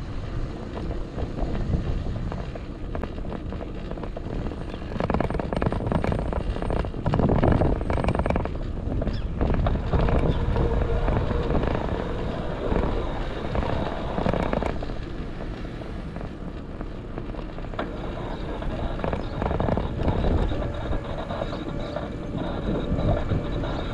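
Wind buffeting a handlebar-mounted action camera on a moving bicycle, with irregular rattles and knocks as the bike rolls over the road surface.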